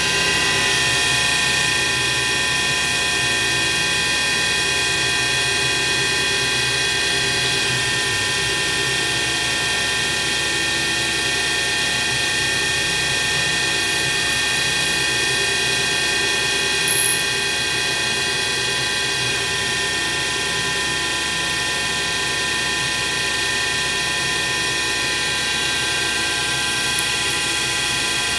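CNC milling machine running steadily, its spindle and small end mill cutting a slot along a VSR-10 airsoft cylinder, giving an even machine drone full of steady whining tones. A brief click about seventeen seconds in.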